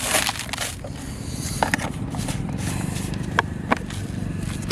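Hands mixing dry fish-bait powder in a plastic basin and handling a plastic jar: soft scraping with a few sharp clicks, over a steady low rumble.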